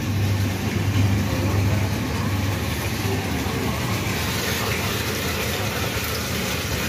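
Water gushing from a hose pipe and splashing steadily into standing water in a pit, the pipe fed by a submersible pump. A steady low hum runs underneath.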